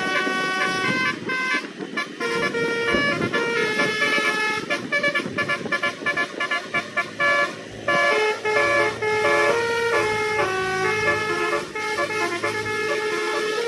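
A bus's basuri telolet horn playing a tune: a continuous run of stepped horn notes, some held and some quick, with a rumble of noise underneath in the first few seconds.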